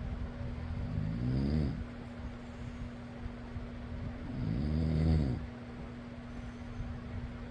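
A person snoring, two drawn-out snores about three seconds apart, over the steady hum and whoosh of an electric fan.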